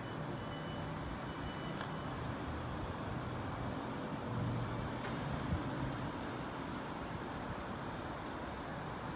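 Steady low rumble of distant vehicles with a low hum underneath, no single event standing out.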